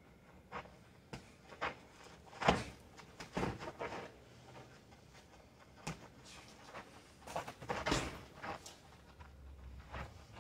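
Boxing gloves thudding in irregular punches and blocks during sparring, with the feet shuffling on dirt. The blows come in flurries, the loudest about two and a half seconds in and another cluster near eight seconds.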